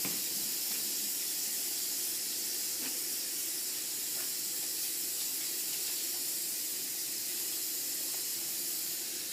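Water running steadily from a tap in a continuous hiss.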